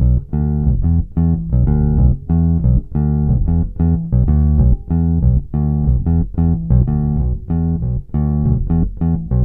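Fender Precision Bass recorded direct, playing a riff of short, detached plucked notes, about three a second, with a little compression.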